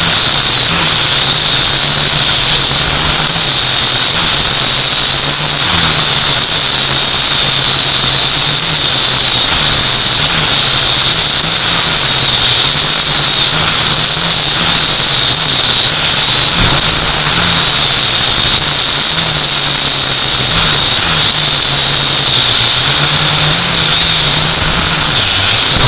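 Quadcopter drone's motors and propellers running in flight: a loud, steady high whine that wavers slightly in pitch as the throttle changes, over a lower motor buzz.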